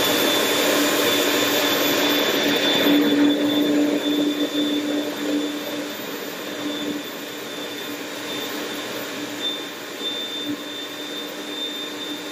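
Kenwood food processor motor running steadily as it blends a chunky herb sauce, a held whine over a churning hum. It grows somewhat quieter about four seconds in.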